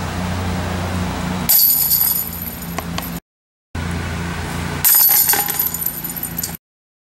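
Golf discs hitting the hanging chains of a metal disc golf basket twice, about a second and a half in and again about five seconds in. Each hit is a bright jangle of chains that rings on for a second or so over a steady low hum. The sound cuts out completely between the two hits and again near the end.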